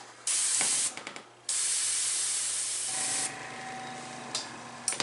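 Airbrush blowing air: two short blasts, then a longer spray of about two seconds that cuts off sharply, followed by a fainter steady hum.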